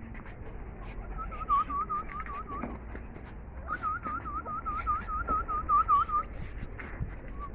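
A high, whistled call repeated rapidly, about five notes a second, in two runs: a short one early and a longer one in the middle. Faint clicks and taps are scattered throughout.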